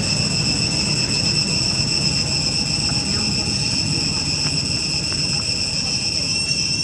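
Steady high-pitched drone of insects, several unbroken tones sounding together, over a low rumbling background.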